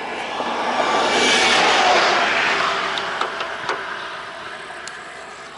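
A road vehicle passing close by, its tyre and engine noise swelling to a peak about two seconds in and then fading away, with a few faint clicks as it recedes.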